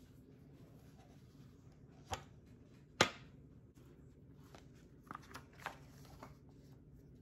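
A wooden serving board and glass mug set down on a stone countertop: two knocks about a second apart, the second louder. Then a few softer clicks and paper rustles as a pen and spiral planner pages are handled.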